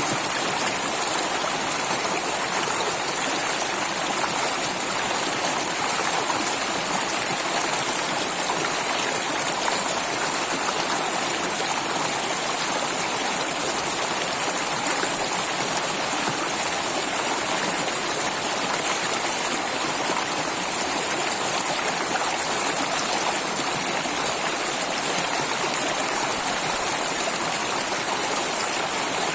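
Flowing water rushing steadily and evenly, with no change in level.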